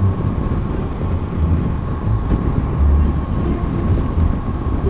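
Kawasaki Versys 650 motorcycle cruising at expressway speed, heard from a helmet-mounted microphone. Uneven wind buffeting and a deep rumble lie over the running engine, with a steady high hum throughout.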